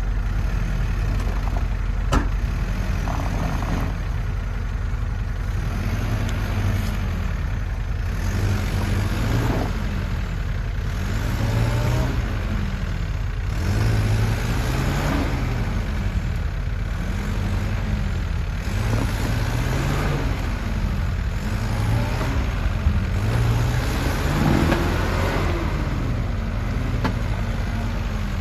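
Off-road vehicle's engine revving up and down over and over, its pitch rising and falling about once every two seconds, above a steady low rumble. There is a single sharp click about two seconds in.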